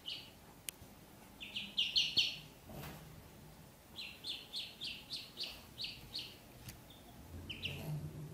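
Ducklings peeping: runs of short, high peeps, about three or four a second, in two main bursts with a few stray peeps between and near the end.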